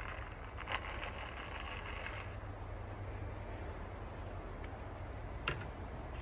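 Outdoor background: a steady low rumble with insects buzzing for the first couple of seconds, then stopping, and two brief knocks, one near the start and one near the end.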